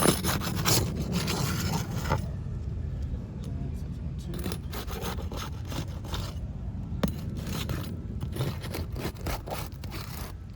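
Roofing shingles being pried loose, scraping and rubbing as they are detached, heaviest in the first two seconds, then lighter scrapes with a few sharp clicks that pick up again in the second half.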